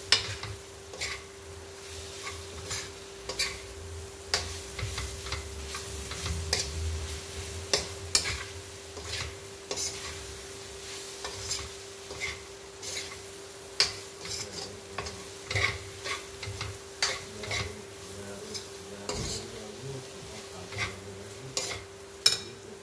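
A spatula scraping and clinking against a kadhai as bitter gourd sabzi is stirred, in irregular strokes about one or two a second, over a faint sizzle of frying and a steady low hum.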